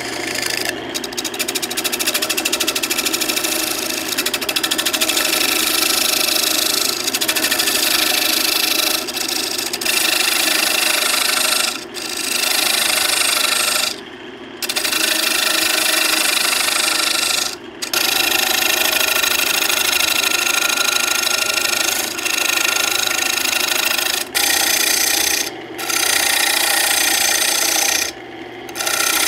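Hand-held lathe tool cutting the face of a spinning walnut plate blank on a wood lathe: a loud, continuous rough scraping over the low hum of the lathe motor. It breaks off briefly several times as the tool comes off the wood.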